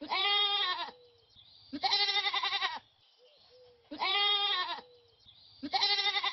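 Goat bleating: four long, wavering bleats about two seconds apart.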